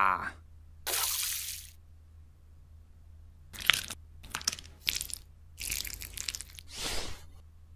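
Hands pushing and mixing a heap of small plastic LEGO pieces: a single smooth hiss about a second in, then a run of short crunchy rustles with a few sharp clicks.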